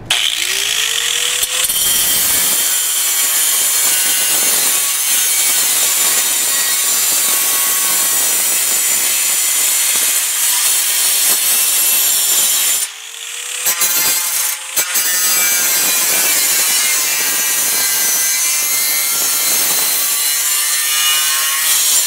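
A 4.5-inch angle grinder with a diamond blade spins up and cuts a slit through a steel framing track, making a loud, steady grinding hiss. About 13 seconds in, it eases off the cut for a moment, then cuts again.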